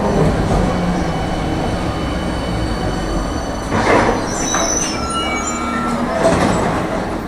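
Tram running on its rails, heard from inside the car: a steady low rumble of wheels and motors. Thin high wheel squeals come in about halfway through.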